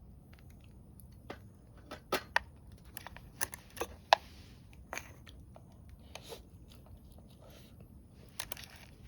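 Irregular sharp crackles and clicks, a dozen or so scattered over several seconds, the loudest about four seconds in, over a low steady background.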